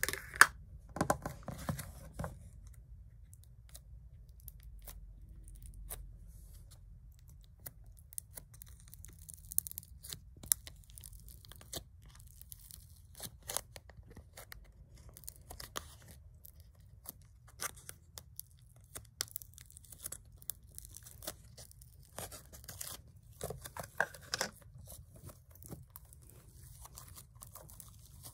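Slime being squished, poked and stretched by hand in a plastic tub, giving off irregular sticky clicks and small crackling pops.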